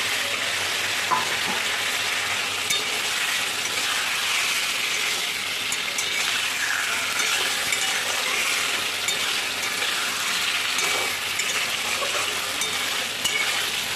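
Boiled taro corms and potato chunks sizzling steadily in oil and spice paste in an aluminium kadai as they are stir-fried. A metal spatula scrapes and clicks against the pan a few times.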